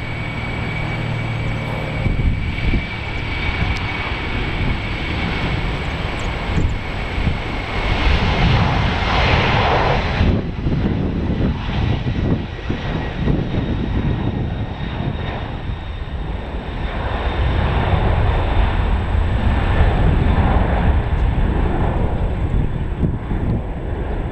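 Boeing 767 freighter's jet engines running: a steady rumble with a thin high whine, growing louder about a third of the way in.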